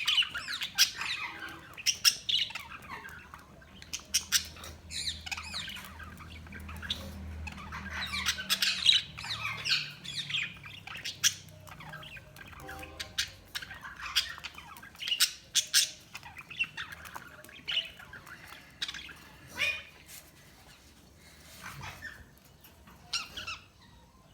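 Budgies (budgerigars) chirping and squawking in a run of short, sharp, irregular calls, busiest in the first half and thinning out towards the end.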